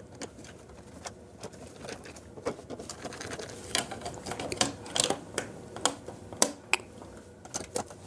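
Irregular small clicks and taps from hand screwdrivers turning the switch and cover-plate screws and from a plastic wall plate being fitted over the switch, the clicks growing more frequent after the first couple of seconds.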